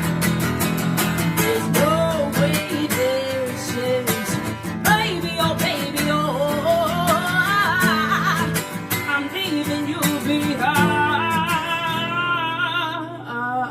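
Acoustic guitar strummed under a woman's wordless sung melody, the closing bars of a song. The strumming stops about a second before the end, leaving the chord ringing under the voice.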